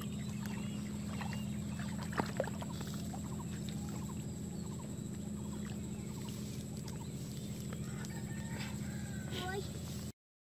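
Scattered short bird calls over a steady low hum, with two sharp knocks about two seconds in; the sound cuts off suddenly near the end.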